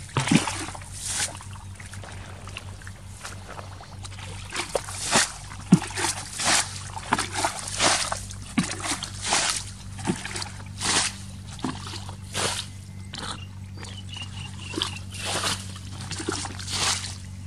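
Irregular sloshing and squelching of feet and hands moving through shallow muddy water, many short splashes one after another.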